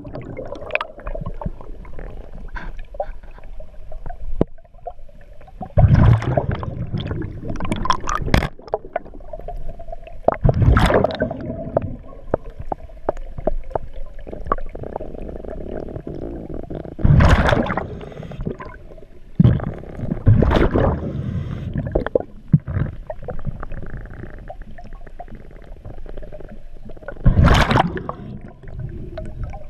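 A diver's breathing regulator underwater: loud bubbling bursts of exhaled air every three to six seconds, with quieter churning water noise between.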